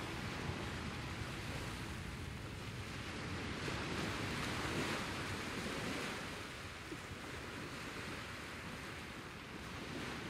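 Ocean surf washing onto the shore, a steady rush that swells a few seconds in and then fades toward the end.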